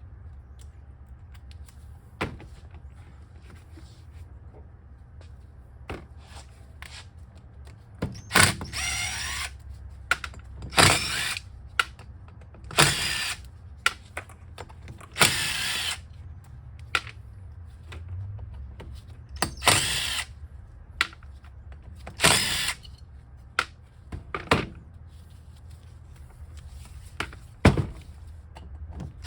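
Impact drill with an Allen bit backing out the Allen screws on an electric scooter hub motor's side cover. It runs in about six short bursts of under a second each, with light clicks between them.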